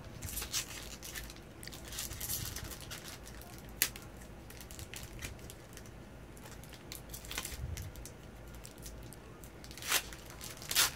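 Foil Magic: The Gathering booster pack wrapper being torn open and crinkled by hand: scattered rustling and crackles, with a sharp crack about four seconds in and louder crinkling near the end.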